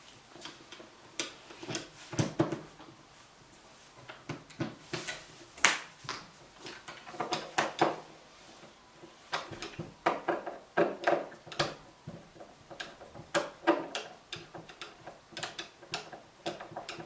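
Hand screwdriver backing out the fixing screws of an interior door handle, giving many irregular metal clicks and clinks.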